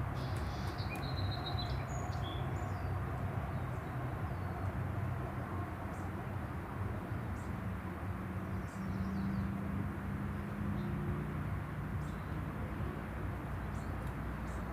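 Outdoor ambience: a steady low rumble, like distant traffic or machinery, with a few short bird chirps in the first couple of seconds.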